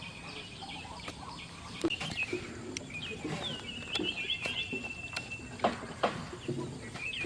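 Birds chirping outdoors, with one long steady high call in the middle, and a few sharp knocks.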